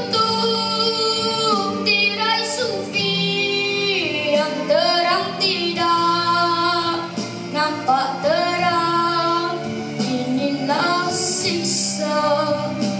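A boy's high voice singing a Malay pop song solo through a microphone over instrumental accompaniment. He holds long notes that bend and slide in pitch.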